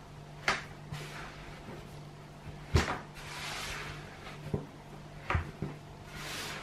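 Shortbread dough being kneaded by hand on a wooden tabletop: several dull knocks as the dough is pressed and pushed against the wood, the loudest about halfway through, with soft rubbing and crumbly scraping between them.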